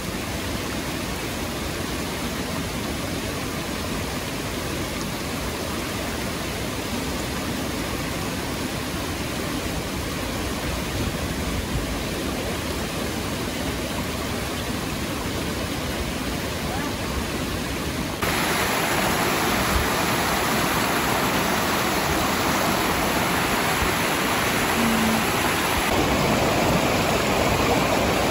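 Waterfall: a steady rush of falling water, jumping louder and brighter about two-thirds of the way through.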